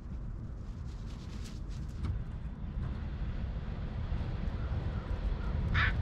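Steady low rumble with a few faint ticks; near the end a crow starts cawing, the first harsh caw of a series.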